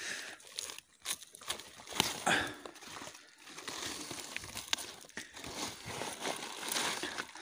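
Rawash (wild rhubarb) leaves and stalks rustling and crackling as a gloved hand grips and pulls the stalks at their base, with a few sharp snaps, the strongest about one and two seconds in.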